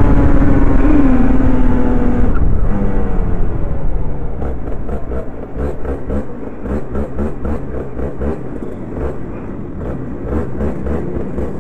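Rotax Mini Max 125cc two-stroke kart engine winding down off the throttle, its pitch slowly falling. It then runs at low revs with an uneven, pulsing beat of about three pulses a second as the kart rolls slowly into the pits.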